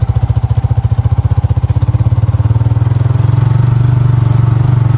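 Small motorcycle engine running at low speed with a fast, even putter, growing louder about three seconds in as it picks up.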